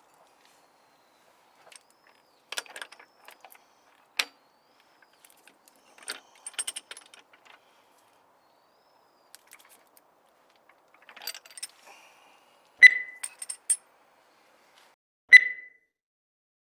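Small metal objects clinking and jangling, with scattered clicks, then sharp metallic taps that each ring briefly, the loudest coming twice in the last few seconds.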